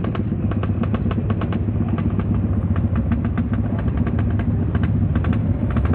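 Motorcycle engine running steadily on the move.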